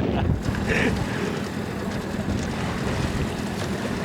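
Strong wind buffeting the microphone, with waves washing around a small fishing boat in rough open water.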